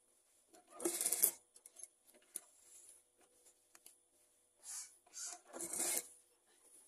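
Shirt fabric rustling and rubbing as it is shifted and smoothed by hand around a sewing machine's presser foot, in several short bursts with a few small clicks between them. A faint steady hum runs underneath.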